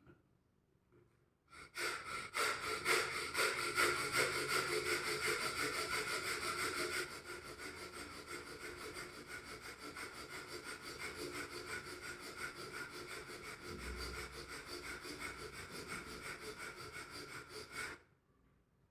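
Bhastrika pranayama (bellows breath): forceful breaths pumped rapidly in and out through the nose in a fast, even rhythm. It starts about a second and a half in, is loudest for the first few seconds, goes on more softly, and stops shortly before the end.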